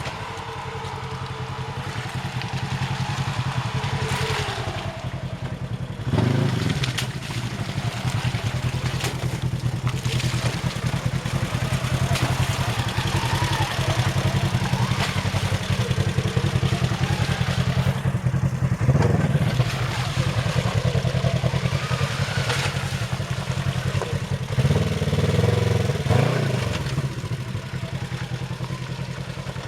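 Off-road side-by-side's engine running steadily, revving up in short bursts about six seconds in, again near nineteen seconds, and around twenty-five to twenty-six seconds.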